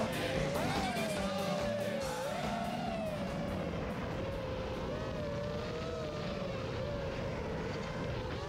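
FPV racing quadcopter's motors and propellers whining, the pitch wavering up and down with the throttle, while background music fades out over the first couple of seconds.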